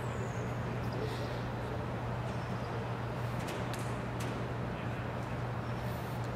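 Steady outdoor background noise with a low, even hum, a few faint clicks and a brief high chirp near the start.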